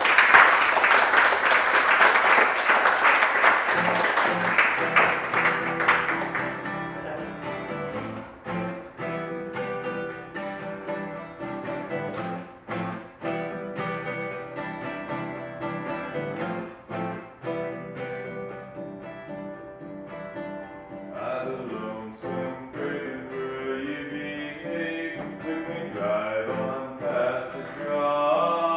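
Solo guitar starting a song with loud, rapid strumming that settles after about six seconds into quieter chords and notes. A man's singing voice comes in over the guitar about twenty seconds in.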